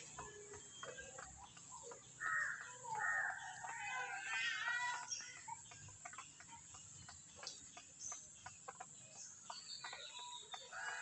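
Chickens clucking in short runs of calls, loudest from about two to five seconds in.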